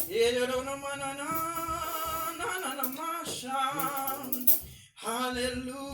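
A voice singing long, wavering notes, breaking off briefly about five seconds in.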